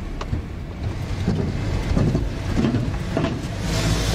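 Car running, heard from inside the cabin: a steady low engine and road rumble with a few knocks. A rush of tyre and wind noise swells near the end.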